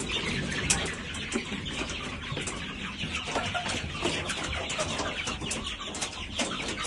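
A flock of chickens clucking busily around freshly filled feed, with scattered sharp clicks throughout.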